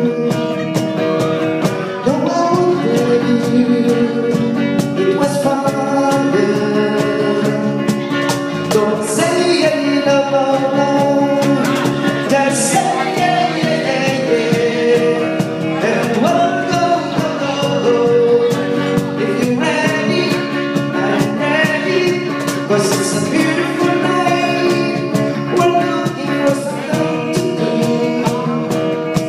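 Live band playing a song, a singer's voice over guitar, with cymbal hits keeping the beat.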